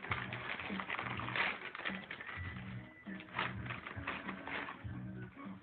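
Wrapping paper crinkling and tearing as a present is unwrapped by hand, in irregular rustles with a few louder rips.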